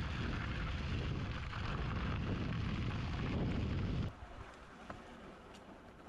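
Fat e-bike tyres rolling and crunching over gravel, with heavy wind rumble on the microphone. About four seconds in this cuts off abruptly to a much quieter rolling noise on grass with a couple of light clicks.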